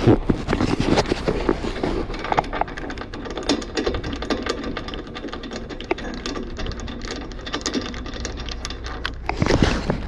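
Irregular clicking, tapping and rustling of close handling noise, over a steady low hum.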